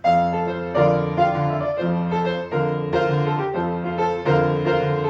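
Piano playing an instrumental interlude between verses of a children's song, a gentle tune of struck chords and melody notes.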